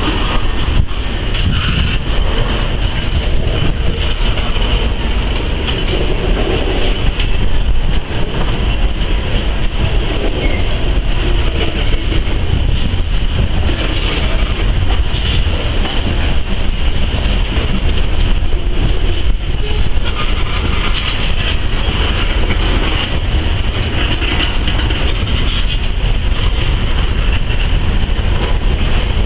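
Freight train of tank cars and boxcars rolling past close by: a loud, steady rumble of wheels on rail.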